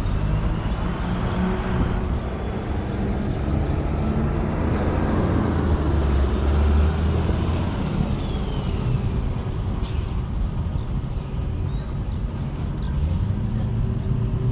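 Motor vehicle engine and road noise: a steady low rumble that swells a little about halfway through.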